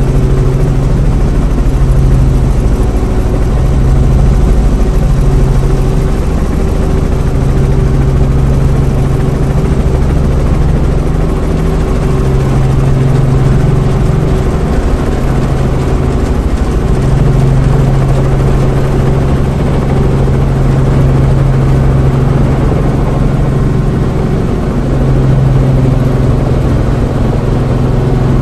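Light tour helicopter's engine and rotor noise heard from inside the cabin in flight. It is a loud, steady drone with a low hum that swells and fades every few seconds.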